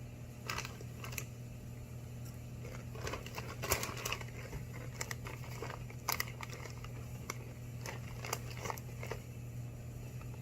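Irregular crackles and crunches of whole grain Sun Chips being chewed and of the chip bag being handled, over a steady low hum.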